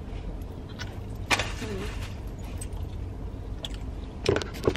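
Steady low rumble inside a parked car, with a sharp click a little over a second in and a quick run of clicks and rattles near the end as someone eats and handles things in the seat.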